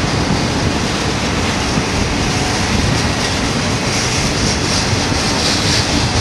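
Double-stack intermodal well cars of a BNSF freight train rolling past at close range: a loud, steady noise of steel wheels on the rails. A brighter high hiss builds about four seconds in.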